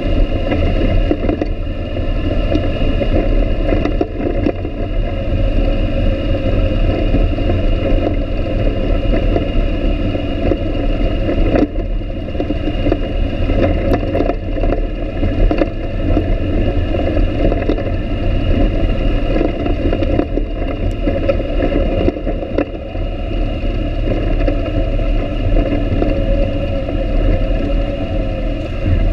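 ATV engine running steadily at trail speed, heard close from the quad the camera rides on, with scattered knocks and rattles as it rolls over the rough dirt trail.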